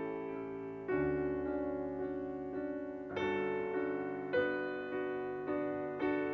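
Slow piano music under the end credits: chords struck every second or two and left to ring and fade.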